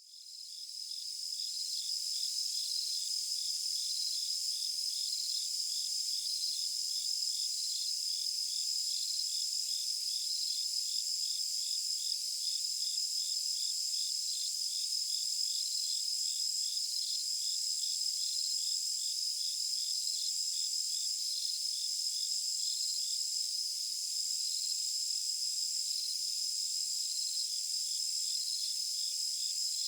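Insects chirping in a steady high chorus, with a slow regular pulse about once a second over a continuous trill; it cuts in abruptly out of silence.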